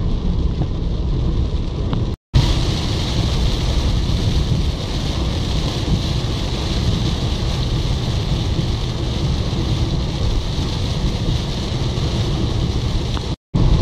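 Heavy rain hissing on the car and road, over the low rumble of the car driving, heard from inside the cabin. The sound cuts out for an instant about two seconds in and again near the end.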